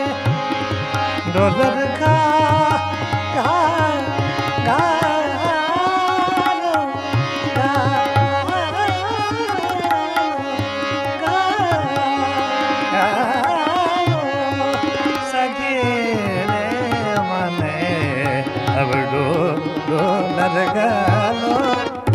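Tabla playing a steady rhythm with deep bass-drum strokes, under a harmonium's held chords and a man's voice singing long, gliding melodic phrases of a folk song.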